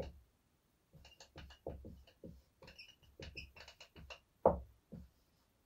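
Writing on a board: a run of short, irregular taps and scratchy strokes with brief squeaks, and a louder knock about four and a half seconds in.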